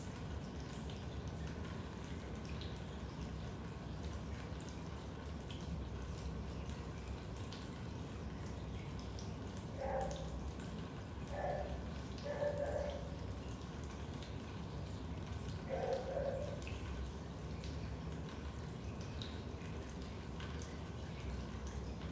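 Raindrops dripping into a basement: many scattered drips over a steady low background hiss, with a few louder drips near the middle.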